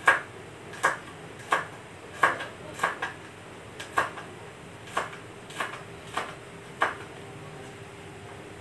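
Kitchen knife slicing vegetables on a plastic cutting board: about a dozen separate knife strikes against the board, unevenly spaced, with short pauses between.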